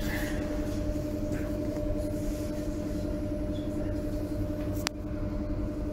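BVG H97 U-Bahn train running at a steady pace, heard from inside the car: a continuous low rumble with a steady hum over it, and one sharp click about five seconds in.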